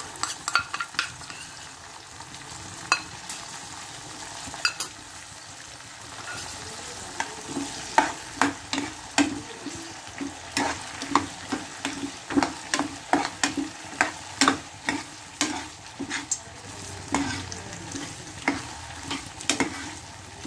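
Steel ladle stirring potatoes, peas and masala paste in hot oil in a kadhai, clinking and scraping against the pan over a steady frying sizzle. The strokes pick up about six seconds in and then come about twice a second.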